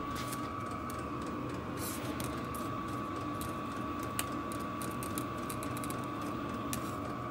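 VEVOR diesel air heater running: the blower's steady hum with a constant high whine, and a few sharp ticks from the fuel dosing pump, the clearest about four seconds in.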